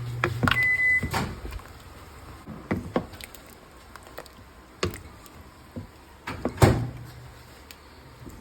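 Scattered knocks and clatters of kitchen handling, the loudest a little past halfway, with a short steady high tone about half a second in and a low hum that stops just after the start.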